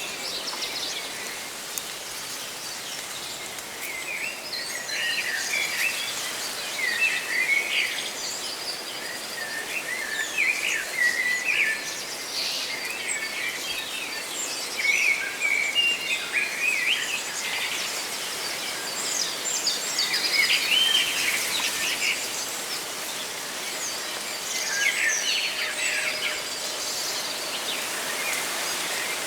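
Songbirds chirping and calling, with clusters of short bright chirps every second or so, over a steady hiss of leaves rustling in the wind.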